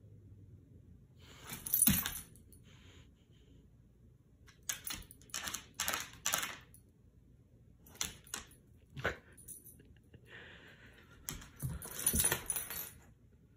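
Metal tags on a dog's collar jingling in short bursts as the dog moves its head along the floor. The longest jingle comes near the end.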